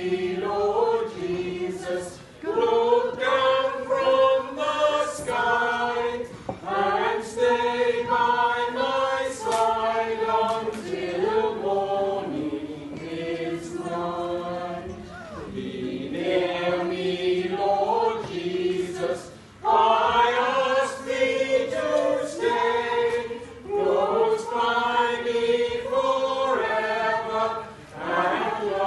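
Small mixed choir of men's and women's voices singing unaccompanied, in sung phrases with brief breaks for breath between them.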